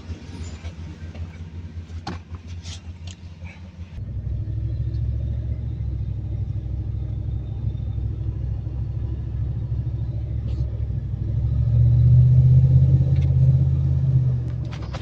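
Ford Raptor's 6.2-litre V8 engine running, now starting normally after its fuse fault was repaired. There are a few clicks in the first three seconds. About four seconds in it suddenly gets louder, and it swells louder again from about eleven to fourteen seconds.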